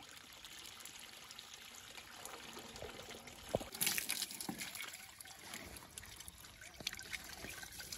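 Water trickling and pouring from a hose into a plastic drum. There are a few small knocks, and a brief louder splash about four seconds in.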